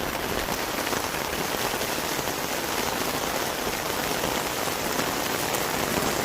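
Heavy rain falling steadily, a dense, even patter of drops on hard surfaces.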